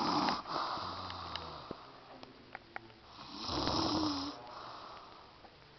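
A sleeping woman snoring: one snore trails off just after the start and another comes about three seconds in.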